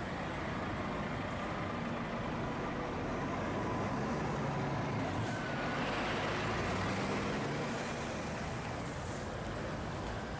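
Heavy lorry's diesel engine running as the truck moves through, a little louder around the middle, with a brief hiss of air near the middle.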